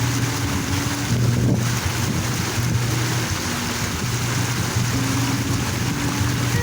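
Park water fountain splashing steadily, under soft background music of sustained low notes.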